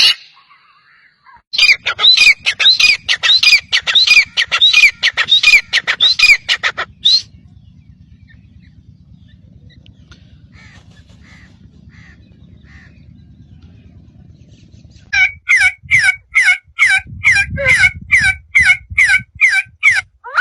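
A bird giving harsh, rapidly repeated calls, about three a second, in two long runs with a quieter stretch of faint calls between them.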